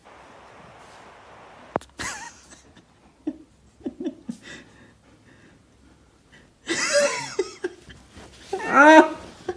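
A pet's short cries and calls, bending up and down in pitch and coming in scattered bursts, with the loudest call near the end.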